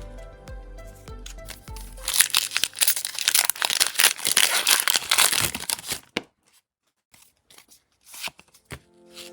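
Background music, then about two seconds in a foil Pokémon booster pack wrapper being torn open and crinkled for about four seconds, the loudest sound; after that only a few light clicks, and the music comes back near the end.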